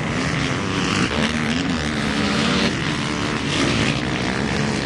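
Motocross motorcycle engines revving hard on the track, the pitch climbing and dropping over and over as riders work the throttle through jumps and turns.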